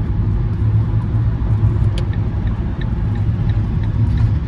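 Steady low road and engine rumble heard from inside a moving vehicle's cabin, with a single sharp click about two seconds in.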